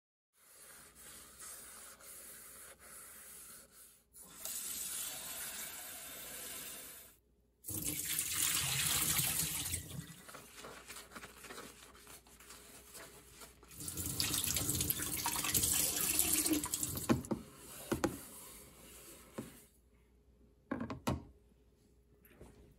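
Kitchen tap running into a stainless steel sink in several spells while a glass pot lid and a nonstick electric hot pot are rinsed, with a few sharp knocks of the wet lid and pot near the end.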